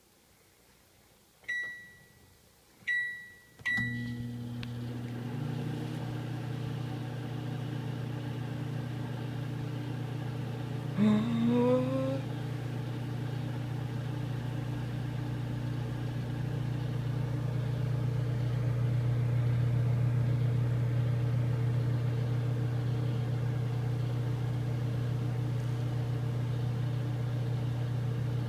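Microwave oven keypad beeping three times, then the microwave starting up and running with a steady hum. About eleven seconds in there is a short rising pitched sound.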